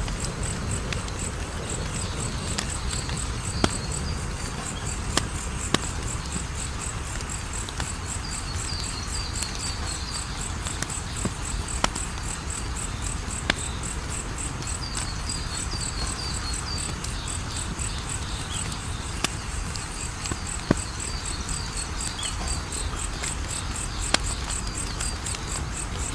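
Wood fire crackling, with sharp single pops every second or few and a low steady rumble. Over it a high-pitched insect chirps in an even, fast pulse that never stops.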